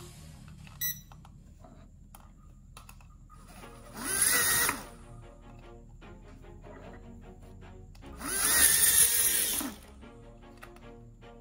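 JJRC H67 micro quadcopter's motors and ducted propellers whirring up twice: a short burst about four seconds in, then a longer one of about a second and a half from about eight seconds in, as the drone lifts off. The pitch glides up and down with the throttle, over background music.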